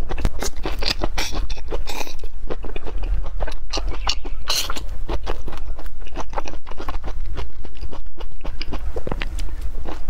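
Close-miked chewing and crunching of a sauced green chili pepper: a dense run of crisp bites and wet mouth clicks, over a low steady hum.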